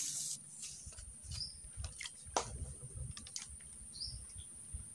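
Light splash of a cricket-baited hook and float landing in still pond water right at the start, followed by faint scattered clicks and two short high bird chirps.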